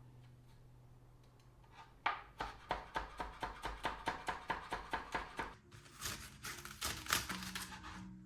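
Knife chopping on a cutting board: quick, even strokes at about four a second, starting about two seconds in and stopping about three seconds later. A rustling noise follows near the end, over soft background music.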